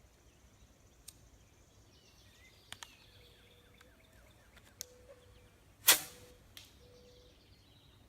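A bottle rocket launched from the barrel of an airsoft/BB gun: a few light clicks, then one sharp shot with a short hiss about six seconds in. The rocket does not explode.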